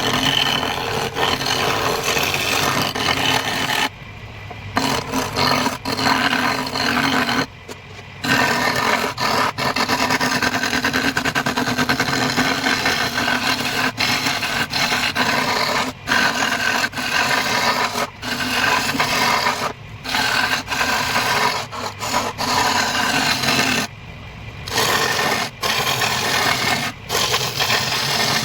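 Wood lathe spinning a wooden vase blank while a tool scrapes and rubs against the turning wood, over the machine's steady hum. The cutting noise breaks off briefly several times, then starts again.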